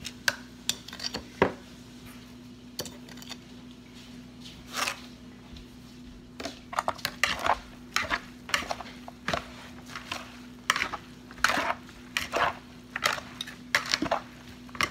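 A metal spoon and chopsticks clinking and scraping against a plastic mixing bowl as a salad of snow fungus and onion is tossed. The clicks and scrapes come irregularly, sparse at first and much busier from about six seconds in.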